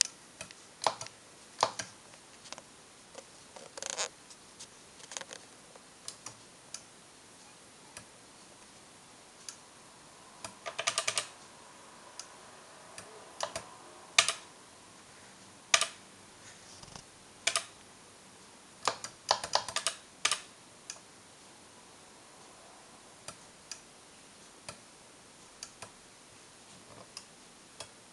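Keys clicking on a breadbin Commodore 64 keyboard as the file lists are stepped through: irregular single presses, with a few short quick runs of presses.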